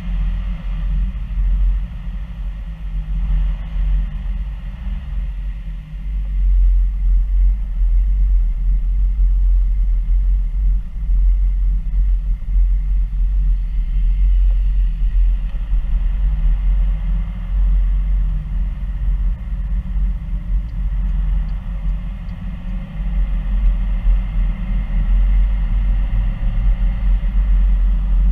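A car's engine and road noise heard from inside the cabin: a steady low rumble that gets louder about six seconds in.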